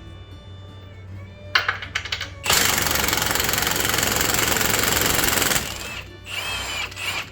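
Impact wrench hammering on a fastener for about three seconds, with short bursts before and after.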